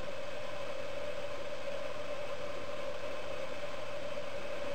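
A steady hum with a constant hiss underneath; no distinct sounds stand out.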